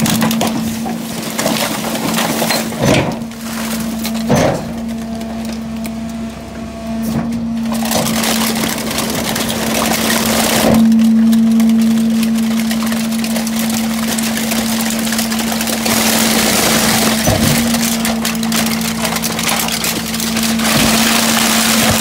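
Garbage truck's hydraulic packer running with a steady hum while its blade crushes trash bags full of aluminium cans in the hopper, a dense crunching and crackling with knocks now and then. The crunching swells about halfway through and again near the end.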